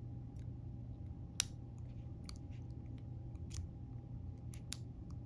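Small scattered metallic clicks and scrapes of a dimple pick sliding and probing the pins inside an Ultion 3-star dimple lock's keyway, with one sharper click about a second and a half in. A steady low hum lies under them.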